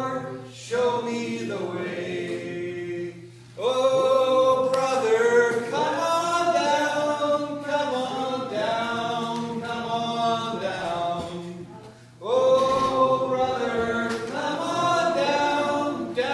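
Voices singing together without instrumental backing, a slow tune in long held phrases. There is a pause for breath about three and a half seconds in and another around twelve seconds.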